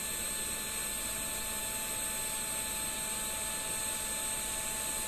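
Small internal cooling fan of DJI FPV Goggles V2 running as the goggles boot up: a steady whir and hiss with a thin high whine.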